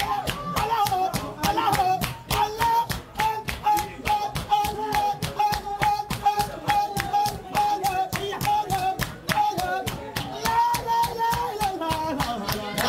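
Sufi dhikr chanting: a man's voice holding long, slightly wavering sung notes over quick, steady rhythmic hand clapping.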